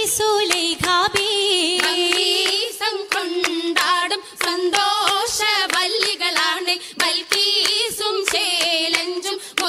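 Oppana: a Mappila song being sung, with the dancers' rhythmic hand claps, several a second.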